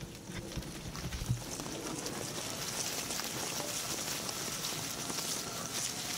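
Small utility vehicle (UTV) driving along a grassy field track, tyres hissing over grass and dry leaves, with a faint whine that rises slowly as it picks up speed. A low thump sounds about a second in.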